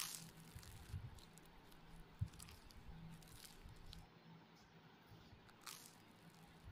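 Quiet eating by hand: rice and fish curry squished and mixed with the fingers on a steel plate, and chewing, with a few sharp clicks over a faint steady hum.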